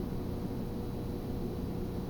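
Steady low rumble and hiss with a faint steady hum, unchanging throughout: background room noise.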